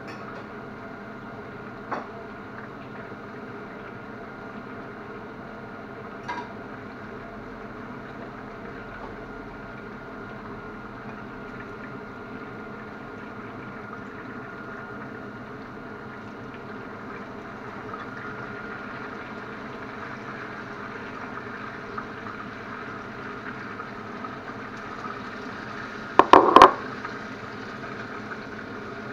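Chicken breast sizzling in a grill pan over a gas burner, a steady hiss. A few faint clicks early, then a short, loud clatter of metal and crockery about three seconds before the end, as a plate is set down and a fork goes into the pan.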